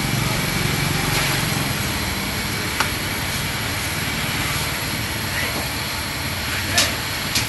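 Steady street traffic noise, a low rumble of passing vehicles, with a few short sharp clicks or taps near the middle and near the end.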